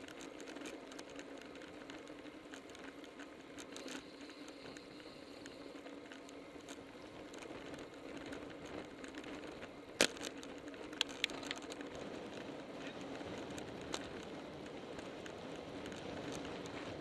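Muffled, steady road and wind noise picked up by a ContourHD action camera on a road bike at speed. One sharp click comes about ten seconds in, and a few smaller clicks follow just after.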